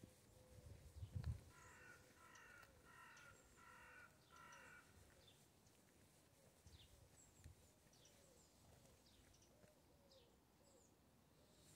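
Faint outdoor birdsong: a bird gives four calls in quick succession, with scattered faint high chirps of smaller birds. A brief low rumble comes about a second in.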